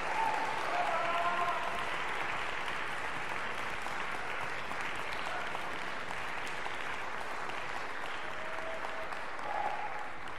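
Audience applauding steadily, with a couple of brief cheers rising above it about a second in and near the end.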